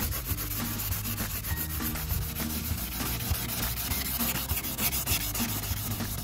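A 1000-grit sanding sponge rubbed by hand back and forth over dried thin-coat body putty on a wet FRP camper panel, making quick, repeated scratchy strokes.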